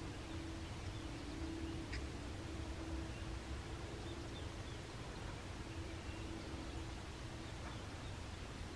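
Quiet outdoor ambience with a few faint, short bird chirps over a low rumble and a soft hum that comes and goes; a single small click about two seconds in.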